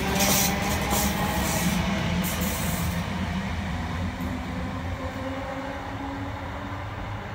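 ScotRail electric multiple unit running away along the track. For about the first three seconds its wheels click rapidly over the rail joints, while a motor whine rises slowly in pitch. The whole sound fades steadily as the train draws away.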